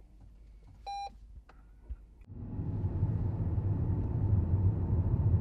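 Lexus car's start-up beep: one short electronic tone about a second in, after the POWER button is pressed, followed by a couple of light clicks. From about two seconds in comes the steady low rumble of the car under way, heard inside the cabin.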